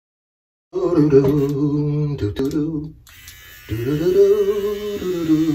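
A man's voice singing in a chant-like way: two long held notes, the second bending up and then down in pitch.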